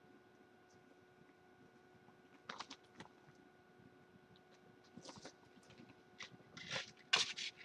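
Kittens' paws and claws scrabbling and rustling on a fabric-sided play box: scattered light clicks and scuffs, busiest near the end, over a faint steady hum.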